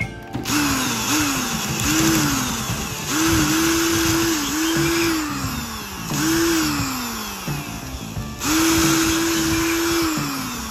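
Small handheld electric power tool, drill-type, switched on in repeated short bursts. Each burst spins up quickly, runs for about a second, with two longer runs, and winds down, with a hiss while it runs.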